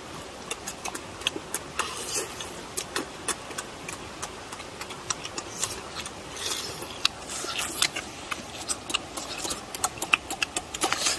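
Close-up eating sounds of a person chewing braised pork leg: wet smacks and irregular sharp clicks from the mouth and the sticky meat, over a faint steady background hiss.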